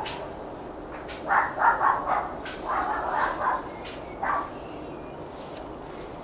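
Dog barking: a run of short barks starting about a second in, the last one a little after four seconds.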